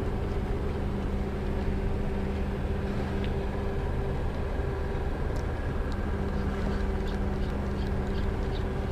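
An engine running steadily: an even, low drone with a steady hum that does not change.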